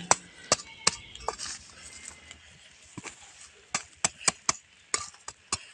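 Soil clods being broken up and the loose soil worked over a freshly planted pit: irregular sharp clicks and light taps, thickest about four to five seconds in.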